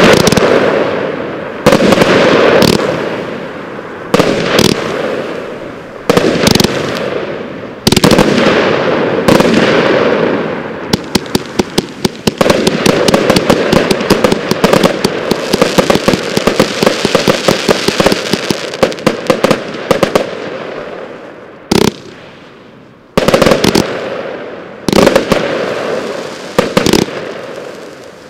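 Broekhoff Sylvester Mainframe 138-shot fireworks compound cake firing: a series of sharp shots each followed by a fading burst. In the middle, for about ten seconds, comes a dense rapid volley of shots, and near the end the shots become sparser with short gaps.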